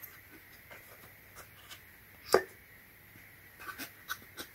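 Steel countersink drill bits and their collars clicking against a wooden case as they are set into its foam holder: one sharp click about two seconds in, then a few lighter clicks and taps near the end.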